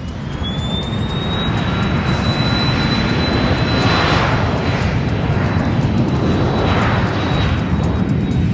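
Jet aircraft taking off: the engine roar grows louder, over a high turbine whine that rises in pitch for the first second and a half and then holds steady.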